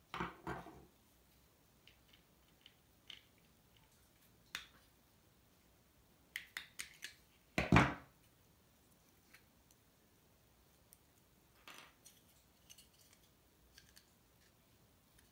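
Small plastic parts of a disassembled alarm clock being handled, giving scattered light clicks and knocks, with a quick run of clicks followed by one louder knock about seven to eight seconds in.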